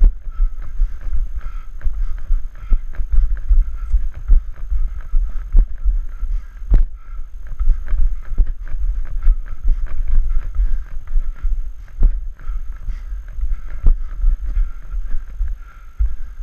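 A runner's footfalls on a rocky trail, heard as quick, uneven thuds and knocks over a steady low rumble of wind buffeting the body-worn camera's microphone.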